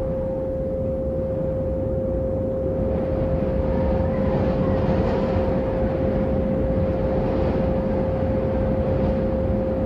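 A steady pure sine tone a little above 500 Hz, held unchanged, over a low rushing noise drone that grows brighter in the middle and eases again near the end. This is a meditation 'frequency' tone track.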